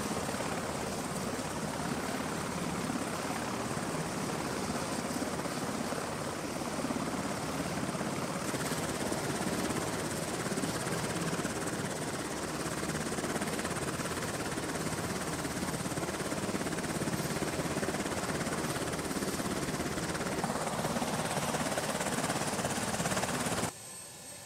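Navy MH-60 Seahawk helicopter running on a carrier deck: its engines and turning rotor make a steady, dense noise. Near the end it cuts off abruptly to a much quieter background.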